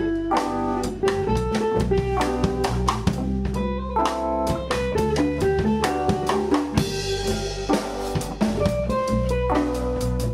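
Background rock music with a steady drum beat, electric guitar and bass.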